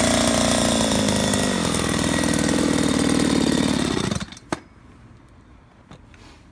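Two-stroke chainsaw engine coming down from cutting revs and running at low speed, then shut off abruptly about four seconds in. A single sharp knock follows just after it stops.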